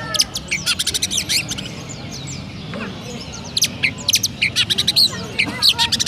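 Oriental magpie-robin (kacer) singing in quick runs of sharp, high chirps in the style of a tree sparrow's chirping. It comes in two bouts: one at the start and another from about the middle on.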